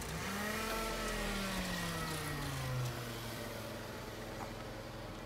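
A car engine running close by, its note dropping in pitch over the first three seconds, then holding steady as it slowly fades.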